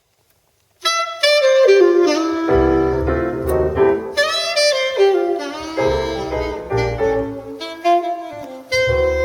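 Jazz saxophone melody over a bass line, played back through a car's Burmester surround sound system. It starts after a brief silence about a second in.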